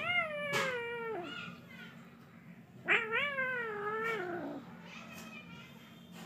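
A kitten giving two long, drawn-out meows about three seconds apart, each starting high and sliding down in pitch.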